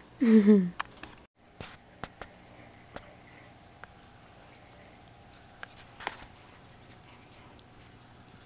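A cat gives one short meow that falls in pitch right at the start. After that there is quiet room tone with a steady low hum and a few faint clicks.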